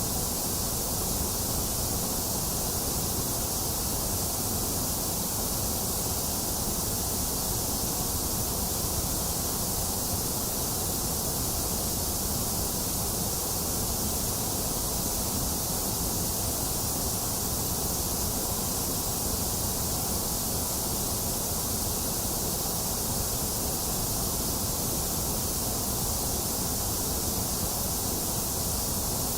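Steady electronic white noise: an even, unchanging hiss with a bright top end.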